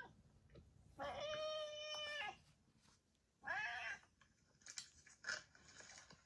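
A domestic cat meowing: one long, drawn-out meow held at a steady pitch for over a second, then a shorter meow that rises and falls about three and a half seconds in. Brief soft rustling follows near the end.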